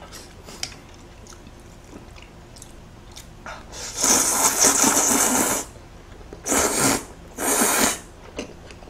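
Kalguksu noodles slurped up from the bowl in three sucking rasps: a long one about four seconds in, then two shorter ones, with faint chewing clicks before them.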